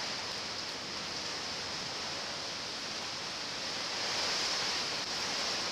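Hurricane wind and heavy rain making a steady rushing noise, swelling a little about four seconds in.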